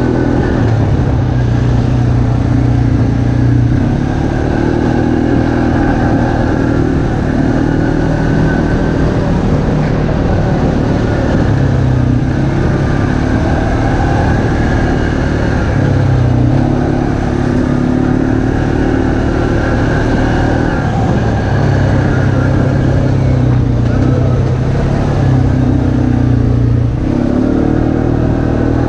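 ATV engine running at speed on a dirt trail. Its pitch steps up and down every few seconds as the throttle is worked, over the rumble of the ride.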